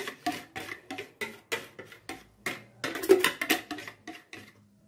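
A plastic bowl being tapped over an aluminium pot to knock out the last of a cocoa mixture. Quick knocks, about four a second, stop shortly before the end.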